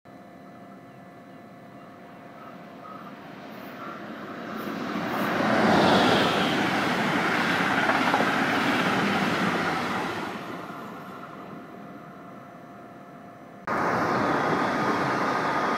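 Electric double-deck regional train (class 146 locomotive with double-deck coaches) passing on the rails: its running noise builds, holds for a few seconds and fades away. Near the end, a class 425 electric multiple unit passing cuts in suddenly, with a steady high whine over its rolling noise.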